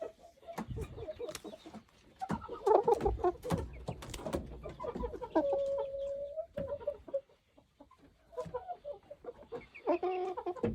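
Chickens clucking with many short calls, one drawn-out steady call about halfway through, and scattered knocks and rustles among the flock.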